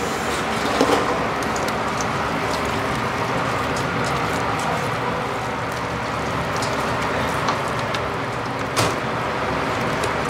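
Mashed boiled potatoes being tipped into a large stainless steel pot of pav bhaji base and stirred in with a metal ladle, with a few sharp knocks of the ladle against the pot, about a second in and near the end, over a steady rushing noise.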